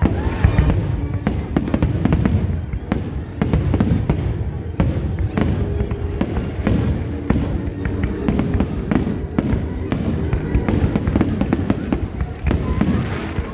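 Fireworks display going off: a rapid, irregular run of bangs and crackles, several a second.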